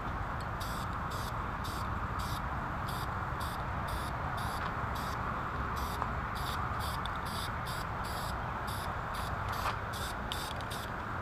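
Aerosol spray-paint can fired in short, quick hisses, two or three a second, with a pause in the middle, laying a light tack coat on a pulley. A steady background rumble runs under it.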